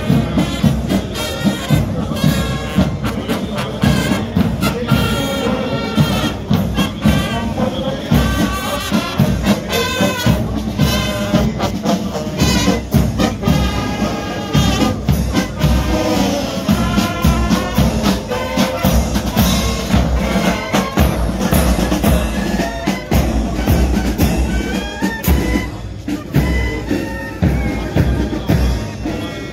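Military marching band playing a march on brass (trombones, trumpets and sousaphones) over a steady beat as it marches past.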